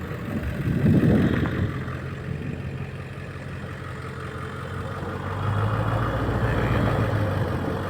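Ford Econoline van's engine running as it crawls along a rocky trail, with a louder rumble about a second in and the engine note rising to a firmer, steady hum about five and a half seconds in.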